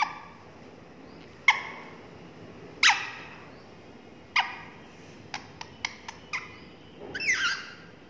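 Rose-ringed parakeet calling: short, sharp squawks about every second and a half, a run of quick clicks in the middle, and a longer call of several falling notes near the end.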